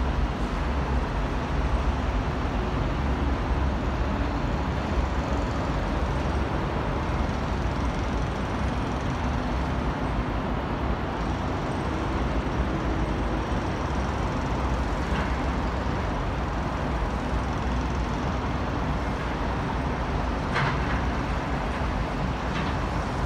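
Steady, even hum of city road traffic heard from high above the street, with a few faint brief high-pitched sounds late on.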